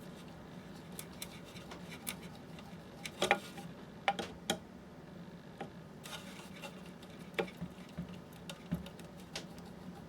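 Scattered light clicks and taps of plastic and metal parts being handled as a dehumidifier fan is worked off its motor, with a few louder knocks about three and four seconds in.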